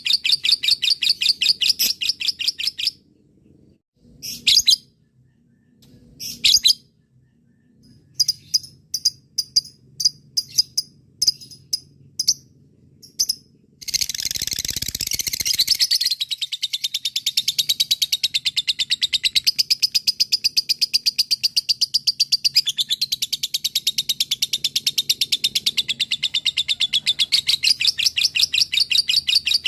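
Lovebird chattering, the long 'ngekek' song: very fast runs of repeated high, rattling chirps. The chatter breaks off after about three seconds into scattered single chirps, then about halfway through starts again with a harsh burst and runs on unbroken.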